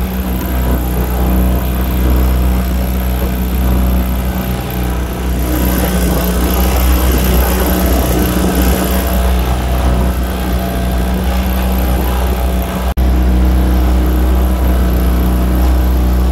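Small fishing boat's engine running steadily under way, with the rush of choppy water around the hull.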